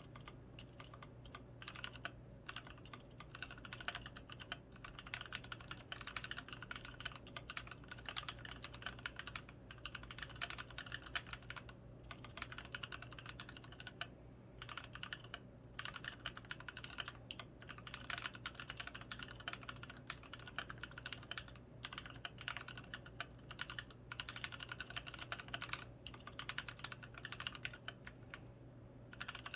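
Continuous typing on an XO V3 mechanical keyboard with Krytox 105-lubed Kailh Polia tactile switches and pudding keycaps: a steady stream of keystroke clacks, broken by a few short pauses.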